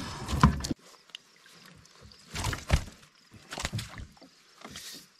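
Water splashing and sloshing around a landing net held in the water beside a canoe, in short splashes about every second. A loud rumble at the start cuts off abruptly under a second in.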